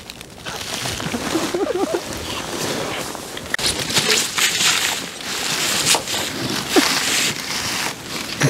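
Duck call blown by a hunter in a series of separate notes.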